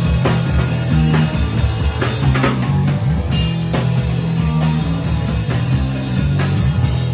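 Live hardcore punk band playing loud: drum kit, bass guitar and electric guitar pounding out a fast song, with a heavy bass line and steady drum hits.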